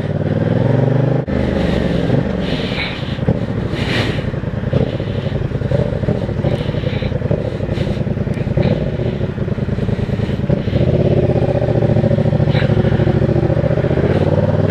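2015 Yamaha MT-07's parallel-twin engine running under the rider, rising in pitch in the first second, then rising and falling with the throttle. From about eleven seconds in it runs louder and steadier.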